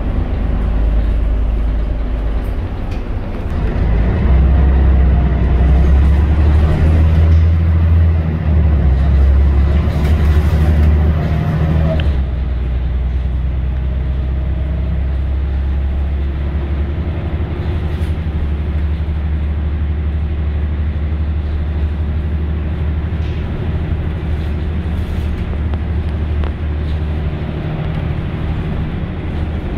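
The 11-litre Scania DSC 1171 diesel engine of a Scania L113CRL bus running with a low, steady drone. It grows louder about four seconds in, then eases back and settles about twelve seconds in.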